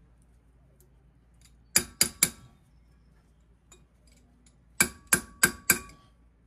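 A steel wrench used in place of a hammer taps a grease cap into a VW Beetle's front disc-brake hub. It makes sharp, ringing metal-on-metal taps, three in quick succession about two seconds in and four more about five seconds in.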